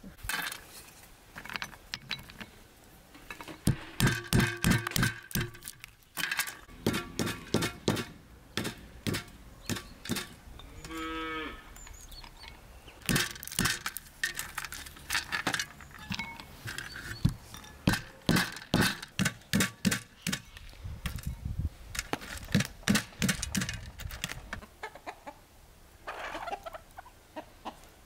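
Walnuts being cracked with a small hammer on a stone block: a long series of sharp cracks and clicks of breaking shells. A cow moos in the background.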